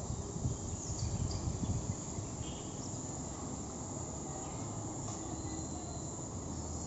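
Steady background noise with faint, high cricket chirping.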